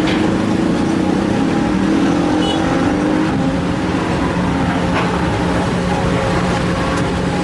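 Heavy diesel construction-machine engine running steadily at working revs, its pitch rising slightly about two seconds in as the load changes.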